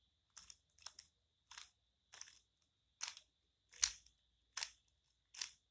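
A Rubik's cube being turned face by face as an F2L algorithm is carried out: eight short plastic clicks, one with each turn, about one every 0.7 seconds.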